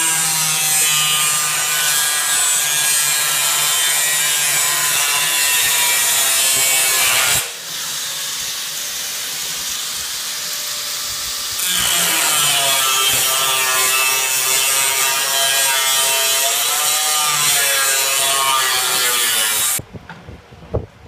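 Angle grinder with a cut-off disc cutting into a steel drum: a loud, steady whine for about seven seconds, then a few seconds of quieter running, then cutting again with the pitch wavering under load. It stops suddenly near the end, leaving a few faint knocks of metal being bent.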